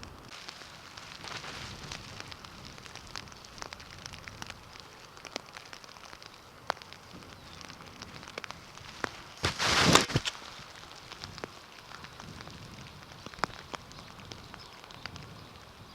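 Rain falling, a steady hiss with many separate sharp ticks of drops striking close to the microphone. About ten seconds in comes one loud rushing burst lasting under a second.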